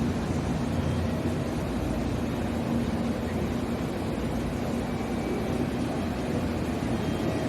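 Train running with a steady low rumble and a constant hum.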